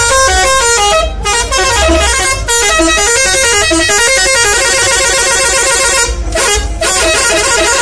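Telolet horn of a Saztro Holiday bus, a multi-tone musical air horn, playing a fast stepping melody loudly. It breaks off briefly about a second in, again near two and a half seconds, and for a moment after six seconds.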